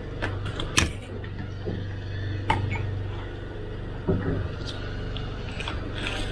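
A fishing boat's machinery humming steadily, with a few sharp knocks and clatters on the deck: one about a second in, one midway and another just after four seconds.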